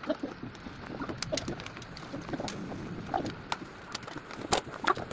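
Cardboard shipping box being handled and its tape cut open with a utility knife: irregular taps, clicks and scrapes.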